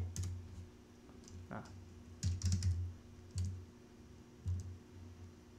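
Computer keyboard and mouse clicks: a few scattered key and button clicks, with a short quick run of them about two seconds in.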